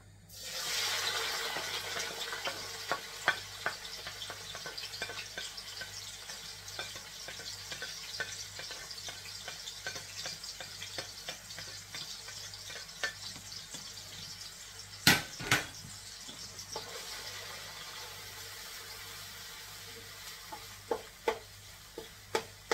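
Chopped seasonings, sweet pepper, garlic, scallion, hot pepper and carrot, hit hot oil in an aluminium pot and sizzle. The sizzle starts suddenly and slowly dies down as they are stirred. A metal spoon clinks and scrapes against the pot throughout, with two sharp knocks about two-thirds of the way through.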